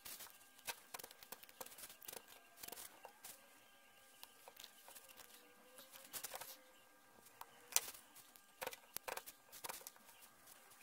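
Faint, irregular clicks and crackles as a soldering iron works the solder joints, desoldering the protection circuit board from the nickel tabs of an 18650 lithium battery pack, over a faint steady hum.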